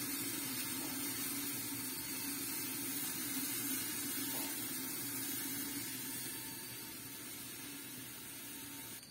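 Steady hiss of a gas stove burner heating an aluminium pot of cooking oil, easing off near the end.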